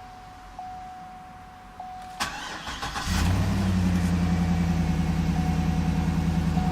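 A 2012 GMC Yukon Denali's 6.2-litre V8 is cranked about two seconds in, catches a second later and settles into a steady, strong idle. Before the start a faint chime repeats about once a second.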